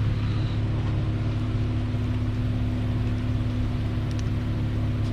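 Car engine idling: a steady low hum with a fixed pitch and an even drone throughout.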